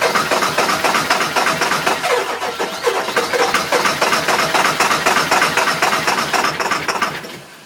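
A 2000 Ford F-250's 7.3 L Power Stroke V8 diesel cranking on the starter with a fast, even rhythm but not catching, until the cranking stops about seven seconds in. This is a no-start, which the owner suspects is down to the injectors.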